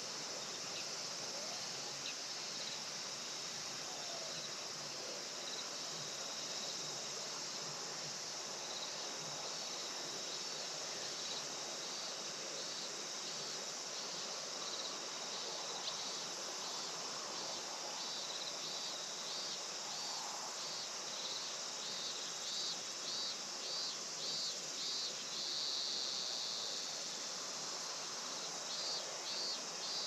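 Evening insect chorus: a steady high-pitched drone. About a third of the way in, one insect's pulsed call joins, about two pulses a second at first and quickening. It runs together into a continuous buzz, then breaks into pulses again near the end.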